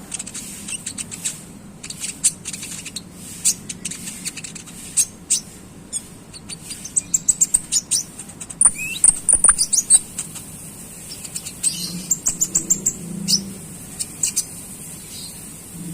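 Konin songbird chirping in quick runs of sharp, high-pitched chips (ngeriwik chatter), thickest around the middle. It is a tutor call, played to get young birds calling.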